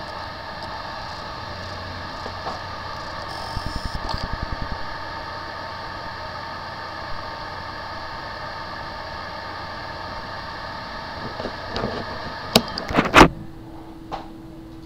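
Seagate desktop hard drive with a bad motor IC, powered up and humming with a steady electrical whine instead of spinning up normally. A quick run of pulses comes about four seconds in, and a few loud clicks near the end leave a steady low tone.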